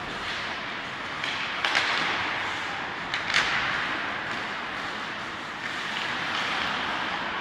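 Ice hockey play in an indoor rink: a steady hiss of skates on the ice mixed with rink noise, with two brief sharp sounds from play, about one and a half and three seconds in.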